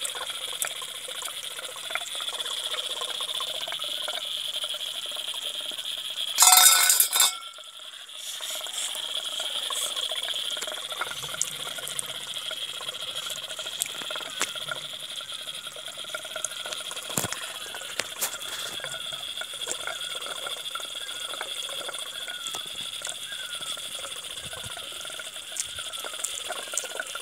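Steady outdoor background of running water with a high steady drone. About six and a half seconds in there is a brief loud rustle, like the microphone being brushed.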